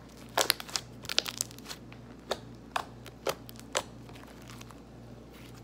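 Fluffy shaving-cream slime squeezed and kneaded by hand, giving sharp wet pops and clicks: a quick cluster in the first second and a half, then single pops about every half second until about the middle.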